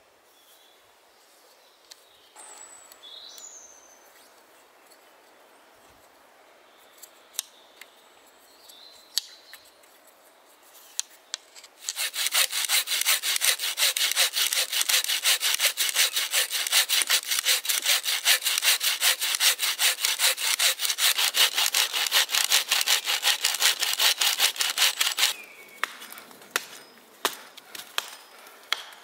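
Wooden bow saw cutting into a dead oak log with fast, even strokes, starting about halfway through and stopping suddenly after about thirteen seconds. Before it there are only faint bird chirps and a few small clicks; after it comes a run of sharp knocks.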